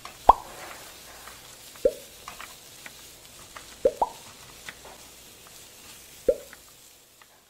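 Water-drop plops: about five short 'bloop' drips that rise quickly in pitch, a second or two apart, with faint ticks between them.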